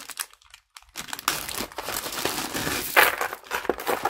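Plastic bag crinkling as it is handled, starting about a second in, with a louder crackle about three seconds in.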